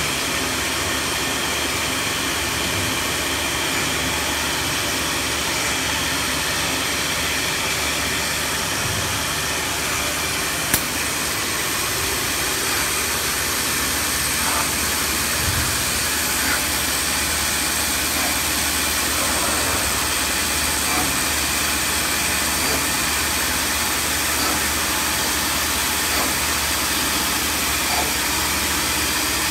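CNC router's 9 kW spindle and boring unit running steadily while machining a board panel: a steady high whine over a hiss. A single sharp click about eleven seconds in.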